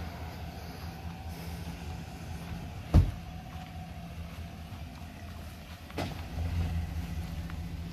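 A pickup truck's engine idling with a steady low hum, a single loud thump about three seconds in, and a smaller click about six seconds in, after which the hum is a little louder.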